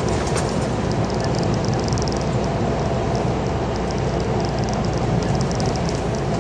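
Scania G410 lorry's diesel engine and tyre noise heard from inside the cab while driving at steady speed: a constant low rumble with faint rattles on top.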